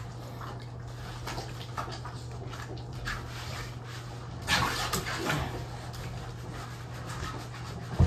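American Bully dogs moving about and breathing, with a louder burst of dog noise about four and a half seconds in, over a steady low hum. A sharp knock comes at the very end.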